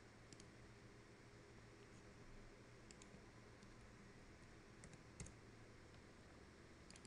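Near silence: room tone with a low hum and a few faint, scattered clicks of a computer keyboard and mouse.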